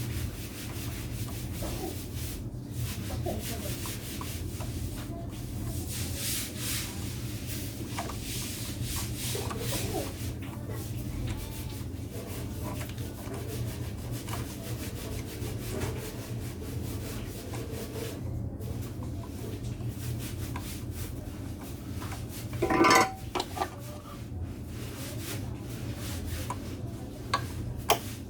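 Irregular rubbing and scraping during hand repair work, over a steady low hum. Late on, there is a brief louder knock.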